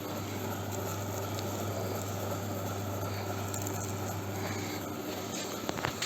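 Carton strapping machine running: a steady low motor hum with a noisy mechanical rush, and a few light clicks near the end.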